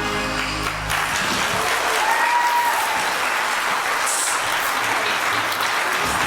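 The last held note of a sung song with guitar dies away about a second in, and an audience claps steadily through the rest.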